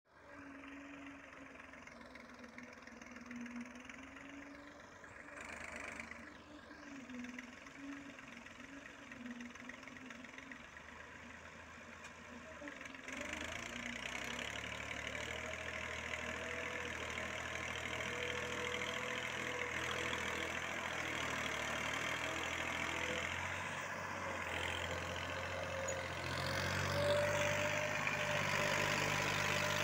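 Massey Ferguson 240 tractor's three-cylinder diesel engine running steadily as it hauls a trailer heaped with soil. Faint at first, it grows clearly louder about halfway through and again near the end as the tractor comes closer.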